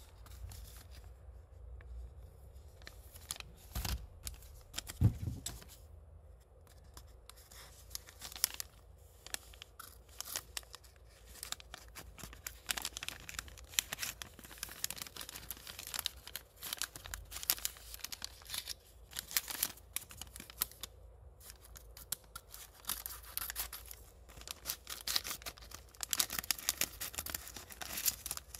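Rustling and crinkling of small paper parts packets being handled, with a couple of dull knocks about four and five seconds in. Near the end scissors snip a packet open.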